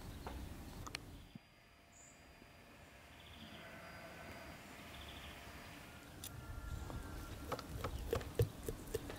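Quiet outdoor ambience with a few faint bird chirps. Later comes a run of knocks and clicks as a knife cuts into a raw whole chicken on a glass dish, growing busier near the end.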